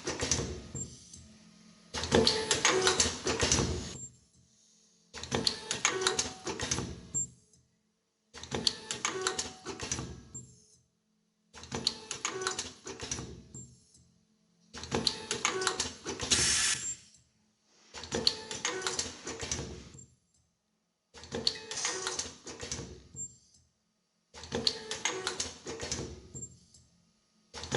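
Automatic nylon zipper film welding machine running repeated production cycles. Each cycle is a burst of rapid mechanical clattering and clicking lasting about two seconds, recurring about every three seconds with a short quiet gap between.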